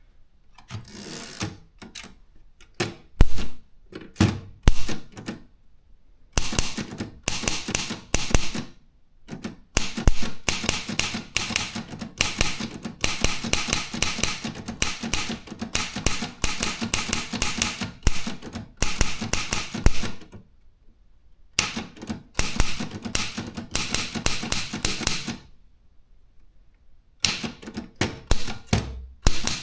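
Consul 232 typewriter being typed on: keys strike in quick runs of clicks, broken by short pauses. A few slower, heavier strokes come in the first seconds.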